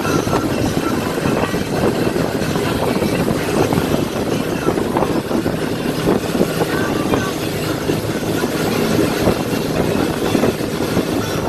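Motorboat engine running steadily at towing speed, under a constant rush of wind and churning water.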